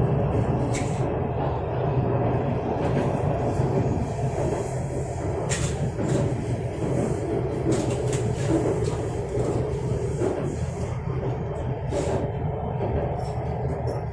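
Steady running rumble of an electric metro train heard from inside the passenger car, with a few faint sharp clicks.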